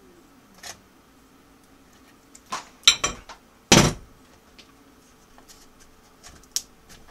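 Metal hand tools clinking and clattering against a tube radio's metal chassis as they are picked up and set down: a few light knocks, a burst of clatter about three seconds in, the loudest clank under a second later, then two lighter clicks near the end. A faint steady hum runs underneath.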